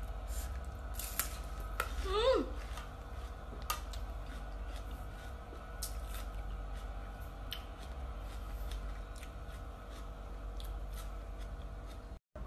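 Close-up chewing of crisp bilimbi (belimbing wuluh) fruit with coarse salt: irregular sharp crunches throughout, over a low steady hum.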